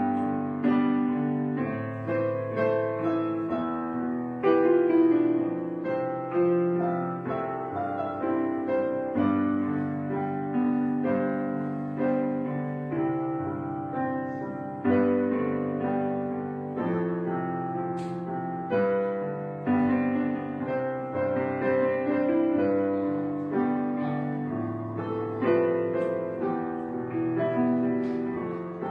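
Soft, slow background piano music, with notes struck and left to ring out.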